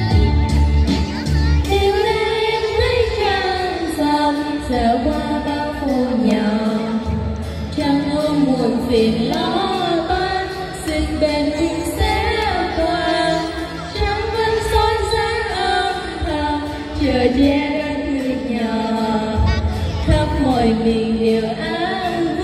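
Two girls singing a Vietnamese song into microphones, amplified through a PA, over a recorded music backing track.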